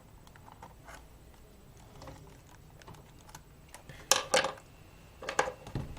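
Plastic clicks and taps of a laptop keyboard being pushed loose from its frame with a flathead screwdriver, faint at first, with two sharp clicks about four seconds in and a few more knocks near the end.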